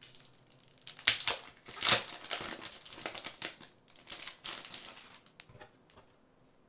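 Packaging crinkling and rustling as an art plate is unwrapped by hand: a run of crackles, loudest about one and two seconds in, dying away near the end.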